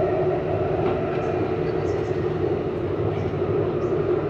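Metro train running along the track, heard from inside the coach: a steady, even running noise with a constant hum.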